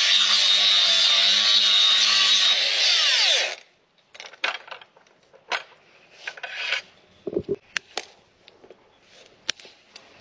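Handheld angle grinder with a sanding disc grinding down a Shire horse's hoof: a loud, steady whine that is switched off about three and a half seconds in and winds down with falling pitch. After that come scattered short scrapes and clicks from handling and hand tools on the hoof.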